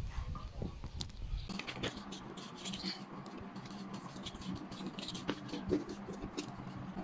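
Cardboard pieces being handled and worked: scratching and scraping with scattered light clicks and taps. A faint steady hum sets in about a second and a half in.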